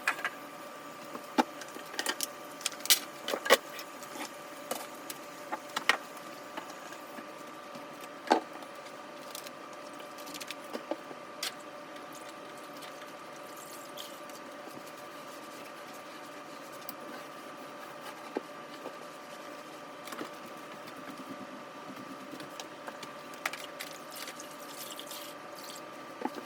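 Scattered clicks, knocks and clatter of items being handled and moved while a kitchen counter is cleaned, busiest in the first ten seconds, over a steady electrical hum.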